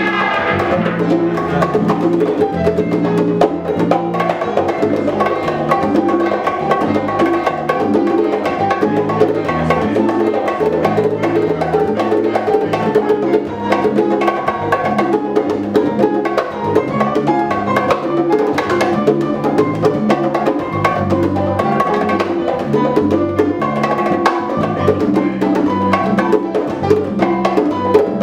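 Live salsa band playing a groove with congas and bongos to the fore, over piano and a stepping bass line.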